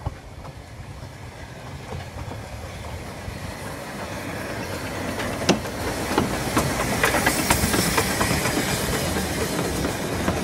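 Narrow-gauge steam locomotive and its coaches running in along the platform, growing louder as it approaches and passes. From about halfway there are sharp wheel clicks over the rail joints, with a hiss of steam as the engine goes by.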